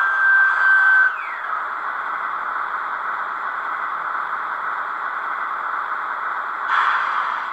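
Roco ÖBB 2143 model diesel locomotive's Zimo MX645 sound decoder playing its factory 12-cylinder diesel engine sound through twin small sugar-cube speakers. A high whine cuts off about a second in, leaving the engine sound running steadily, with a short burst of hiss near the end.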